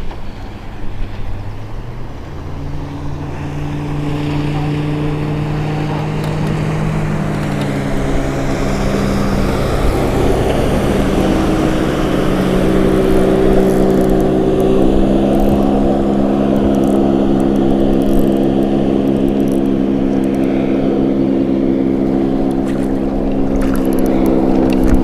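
Outboard motorboat engine running, growing steadily louder as the boat comes closer, its engine note rising in a few steps.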